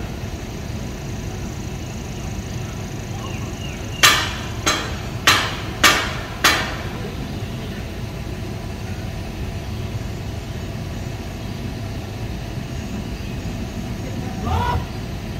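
Five sharp hammer blows in quick succession, about 0.6 s apart, starting about four seconds in, each with a short ringing tail, from work at the base of a ham radio antenna tower. A steady low rumble runs underneath.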